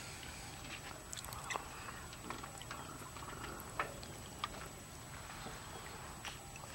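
Faint open-water ambience with scattered light clicks and a few brief, distant animal-like calls.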